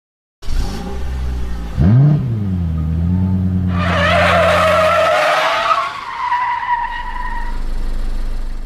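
Race car engine running with a sharp rev about 2 s in, then tyres squealing loudly from about 4 s in, their high pitch wavering and slowly falling.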